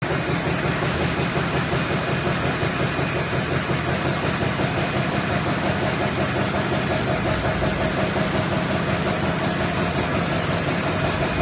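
High-speed die cutting machine running steadily while it cuts label stock: a fast, even mechanical chatter with a steady hum under it.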